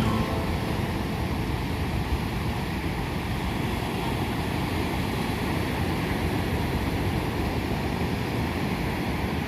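Steady rush of ocean surf breaking on the shore, with wind rumbling on the microphone.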